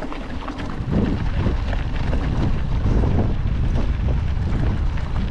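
Wind noise on a GoPro's microphone: a dense low rumble that picks up about a second in.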